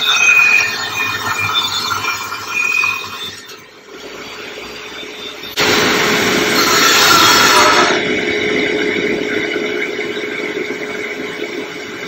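Vertical panel saw's circular blade cutting through a wood panel: a harsh cutting noise for the first three seconds or so, then a sudden louder cut just past halfway that lasts about two seconds. The saw motor's steady hum runs on underneath.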